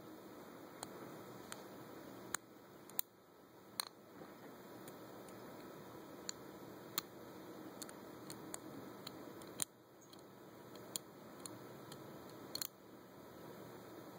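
Irregular, scattered metallic clicks of a lock pick and tension wrench working the pins of a four-pin Chateau padlock with spool pins during single pin picking, over a steady faint hiss.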